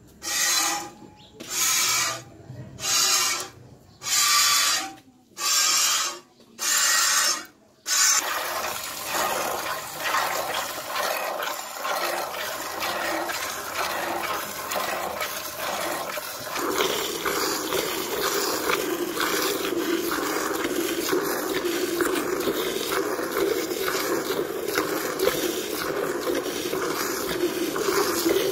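Water buffalo milked by hand into a steel bucket. For the first several seconds there are about seven separate spurts of milk, roughly one a second. After that the streams run on as a continuous rhythmic hiss into the frothing milk, and a lower note joins in a little past halfway.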